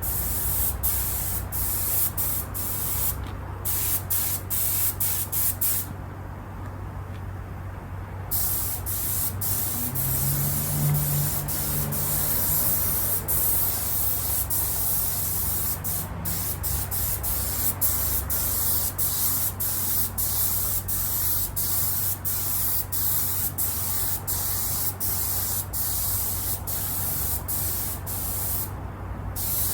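Spray paint hissing onto a car seat in repeated bursts with many brief gaps, stopping for about two seconds near a quarter of the way in and briefly near the end, with a steady low hum underneath.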